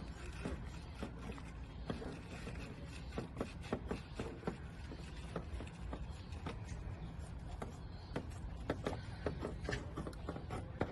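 Scissors cutting through the camper window's plastic insert sheet: a run of irregular short snips and crackles, over a steady low rumble.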